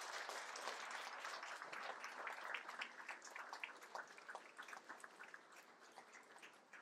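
Audience applauding, many hands clapping, fading out gradually.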